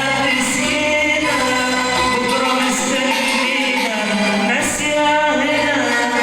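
Arabic song: a singer's voice holding long, gliding melodic lines over instrumental accompaniment.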